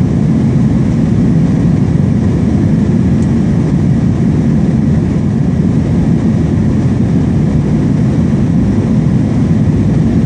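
Steady jet engine and rushing-air noise heard inside an airliner's cabin while climbing after takeoff: a loud, even, low rumble.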